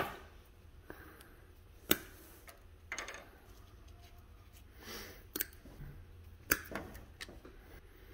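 Side cutters and hand tools clicking: about six sharp snips and knocks, a second or so apart, as a power cord's jacket and wire insulation are trimmed and tools are handled on a metal workbench.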